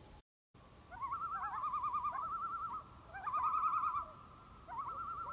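Common loons giving their tremolo call: rapidly quavering, laughing notes around one pitch, several birds overlapping. The calls come in bouts starting about a second in, with short breaks between them.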